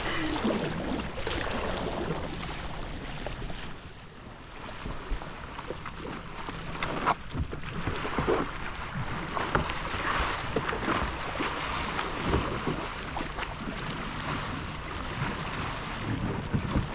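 River rapid rushing over rocks, with wind buffeting the microphone and occasional short splashes.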